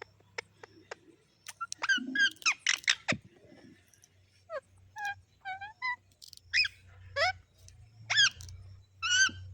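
Pet green parrot calling: a string of short, sharp, high-pitched chirps and squawks, some in quick runs, with gaps between.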